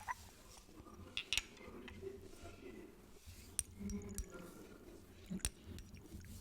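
Sparse, sharp glassy clicks and clinks of glass perfume bottles and caps being handled and tapped, a few separate knocks a second or two apart.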